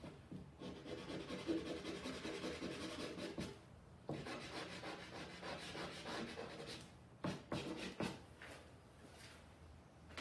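Stick of charcoal scratching and rubbing across canvas in shading strokes: two runs of a few seconds each, then a few short strokes, then it stops.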